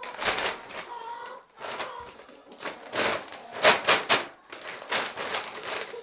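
A paper sack of scratch grain rustling and crinkling as it is handled and its top is pulled open, in several separate bursts, the loudest about three to four seconds in.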